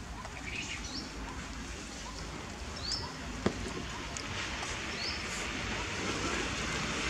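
A bird repeating a short high chirp about every two seconds over steady outdoor background noise, with one sharp click about three and a half seconds in.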